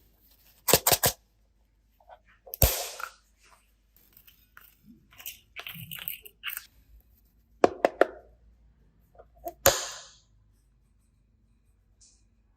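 Handling noise from small objects: a quick triple click about a second in, then single sharp snaps near 3, 8 and 10 seconds, with lighter rustling and tapping between.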